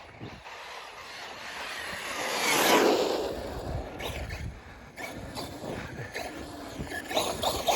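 Arrma Fireteam 6S 1/7-scale RC car driving by, its noise swelling to a peak about three seconds in and then fading away.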